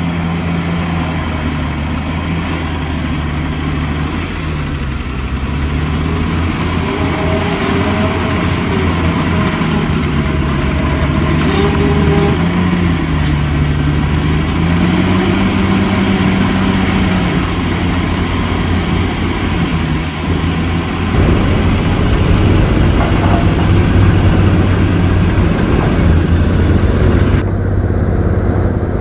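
Heavy diesel engine of earth-moving machinery running, its pitch rising and falling as the engine speed changes under work. The sound changes abruptly about three-quarters of the way through.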